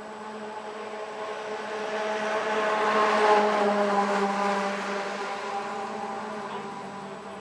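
Small riding-mower engine (the Snapper's Briggs & Stratton) running steadily, with a louder engine sound swelling up to a peak about three seconds in and then fading away.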